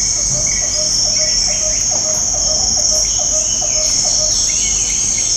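Steady, shrill chorus of forest insects such as crickets, with a short lower note repeating about three times a second underneath.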